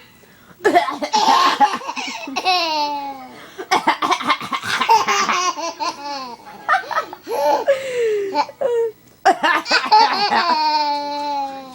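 Baby belly-laughing in three long bouts, starting about a second in, about four seconds in and about nine seconds in, with the pitch sliding down through each peal. The laughter is the baby's response to an adult's fake coughing.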